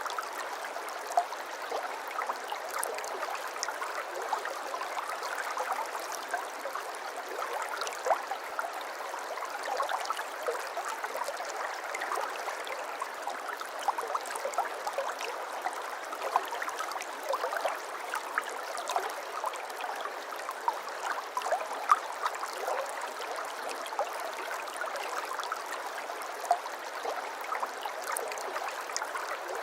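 Water in a stream, flowing and babbling steadily, full of small trickles and splashes with an occasional louder plink.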